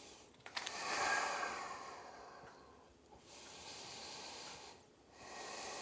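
A person breathing slowly and deeply: three long, even breaths of about two seconds each, with short pauses between them.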